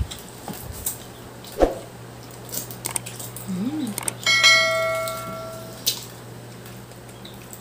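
A few sharp clicks and knocks, then about four seconds in a single bell-like ding that fades away over about a second and a half.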